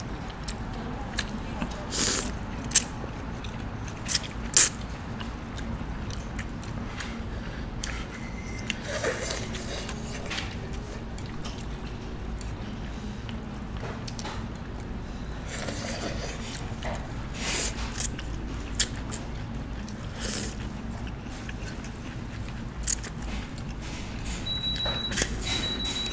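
Eating sounds at a table: crunchy bites and chewing, with a few sharp clicks of utensils against dishes, over a steady low hum. A thin high electronic beeping comes near the end.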